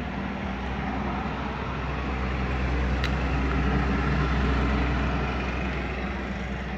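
A motor vehicle engine running close by, a low rumble that swells louder through the middle and then eases off, with a single sharp click about three seconds in.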